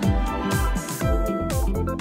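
Background music: an electronic track with a steady bass-drum beat about twice a second under held melodic notes.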